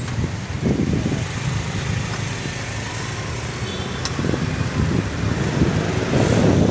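Road traffic: motor scooters and cars running close by on a city street, a steady low rumble of engines and tyres.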